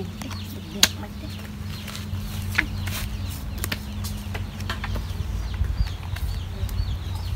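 Playing cards being laid and slapped down on a cloth mat, making sharp clicks now and then, the loudest about a second in and again near two and a half seconds. Chickens cluck in the background.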